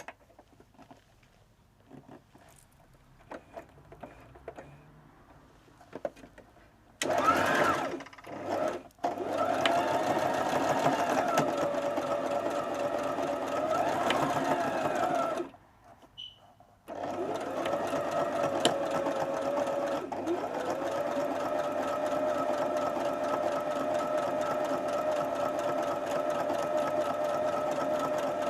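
Brother LS14 electric sewing machine stitching in two runs: it starts about seven seconds in, its motor speeding up and slowing a little, stops briefly after about eight seconds, then starts again and runs steadily. It is sewing the channel across the top of a bandana for the collar to pass through.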